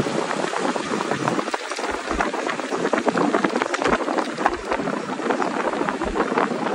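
Steady crackling rush of air and road noise heard through the open window of a moving vehicle, with many small clicks and crackles.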